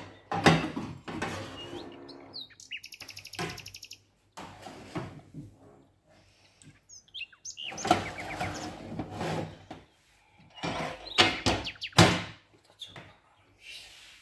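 Metal wire oven rack and baking tray clattering and scraping as they are slid into a small electric countertop oven, in several bursts, then a sharp bang about twelve seconds in as the oven's glass door is shut. A short run of fast ticking comes a few seconds in, and a few bird chirps are heard.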